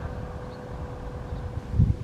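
Wind buffeting the microphone in low gusts, strongest near the end, over a faint steady tone that fades out partway through.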